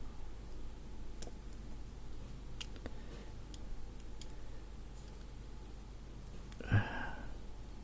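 Light, scattered clicks of tweezers picking up and setting down small lock pins from a disassembled pin-tumbler lock, with one short, louder sound shortly before the end.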